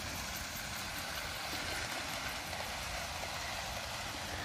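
Bachmann OO gauge GWR Manor model locomotive and coaches running past on garden railway track: a steady rolling rumble of wheels on rails, a little louder in the middle as the train comes closest.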